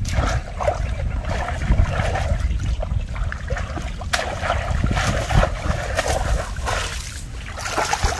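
Hands splashing and sloshing in shallow muddy water, in irregular bursts, over a low rumble.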